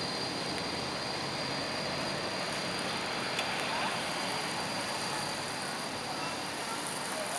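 Steady street noise of a low-floor tram running away along its rails, with traffic rumble and a thin steady high-pitched whine over it.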